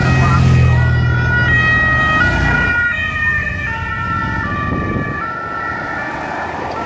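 Sirens of the race escort vehicles sounding in steady tones that step between pitches a few times a second, fading near the end. A motorcycle engine rumbles past during the first two and a half seconds.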